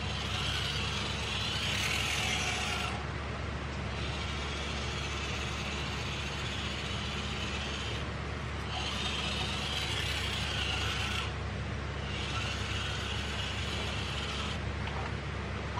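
A 1/24-scale mini RC crawler's small electric motor and drivetrain gears running in three bursts of high-pitched whirring as the throttle is worked.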